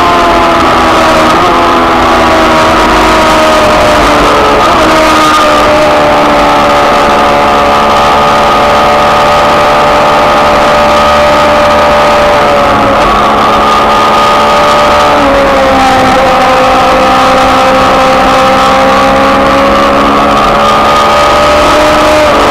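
Racing sidecar engine running at high revs under load. The pitch holds high and shifts in steps several times as the gears change, with rushing wind and road noise underneath.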